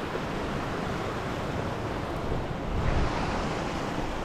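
Steady rush of water running and falling over rocks at a small waterfall, swelling briefly about three seconds in.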